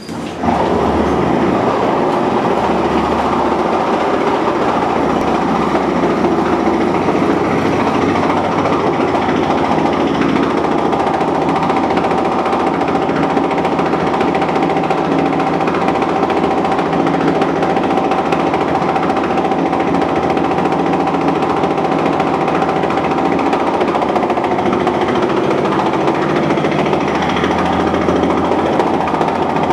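Pneumatic jackhammer hammering continuously and loudly without a break. A steady whine runs alongside it through the middle stretch.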